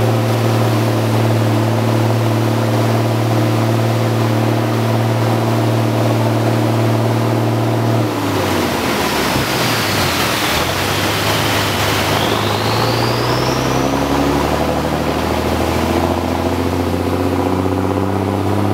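Vehicle engine running steadily while driving along a flooded road. About eight seconds in, the engine note drops as it slows, with a rush of noise and a faint high whine that dips and rises; over the next few seconds the engine note climbs again as it picks up speed.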